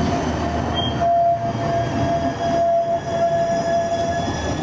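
Siemens S70 light-rail streetcar rolling past and pulling away on its rails, with a steady high whine from about a second in until near the end.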